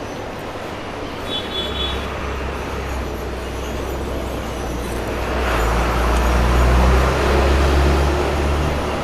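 A motor vehicle's engine running close by over traffic noise, a low hum that grows louder about halfway through and eases off near the end.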